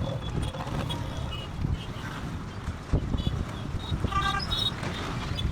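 Street ambience: a steady low rumble like road traffic, with scattered short high chirps and one brief pitched honk-like tone about four seconds in.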